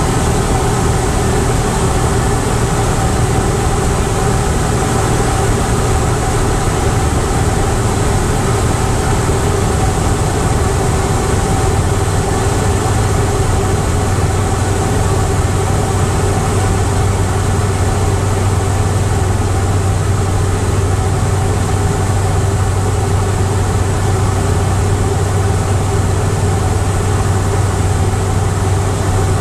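Tecnam P2002 Sierra's Rotax 912 four-cylinder engine and propeller droning steadily in cruise flight, heard inside the cockpit, with a constant low hum under a wash of airflow noise.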